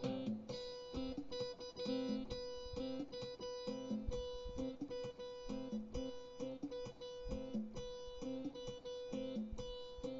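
Instrumental music without singing: a plucked, guitar-like sound repeats a short low figure over one steadily held note.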